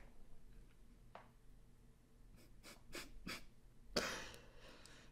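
Quiet breathing from a man stifling laughter, with a few faint soft clicks and one louder breathy exhale about four seconds in.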